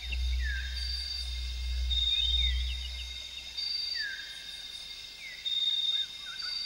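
High chirps, short trills and swooping whistles recurring every few seconds, over a low hum that fades out about three seconds in.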